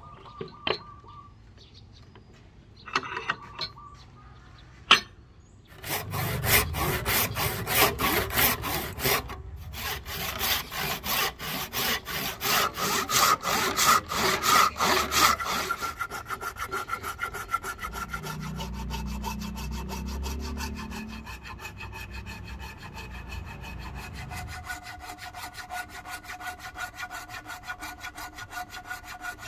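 Hand saw crosscutting a block of padauk wood: steady back-and-forth rasping strokes, loud from about six seconds in, with a short pause partway through. A few sharp knocks come before the sawing starts, and after the middle the strokes turn quicker, quieter and finer as a small blade cuts into the wood.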